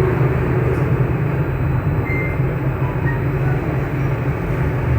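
Hot-air rework gun blowing steadily: a continuous, even rushing of air with a low rumble.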